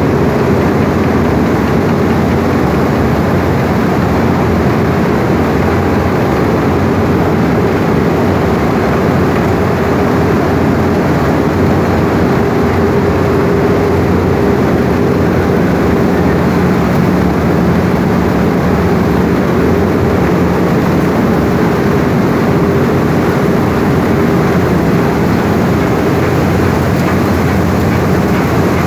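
Wheat cleaning and flour mill machinery running: a loud, steady mechanical drone with a constant hum and the rush of grain over vibrating sieve screens.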